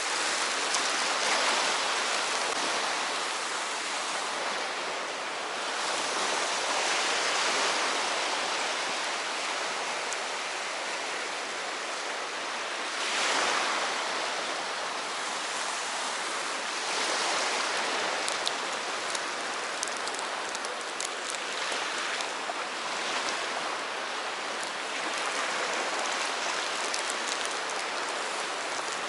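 Sea waves washing onto the shore: a steady rush that swells and eases every few seconds.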